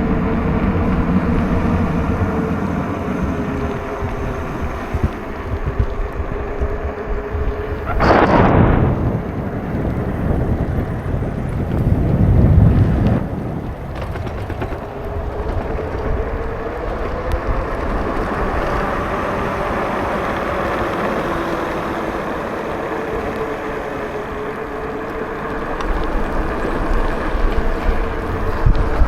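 E-bike riding along a wet street: a steady whine that drifts slightly in pitch, over wind and tyre noise. A brief loud rush comes about eight seconds in, and a low rumble swells around twelve seconds.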